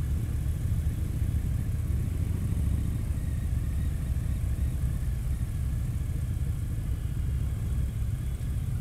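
Harley-Davidson touring motorcycle's V-twin engine running steadily as the bike rolls along a street, a low even rumble.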